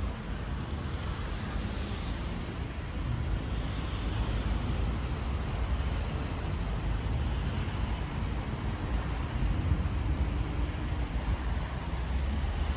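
City street ambience: steady road traffic noise of passing cars and other vehicles.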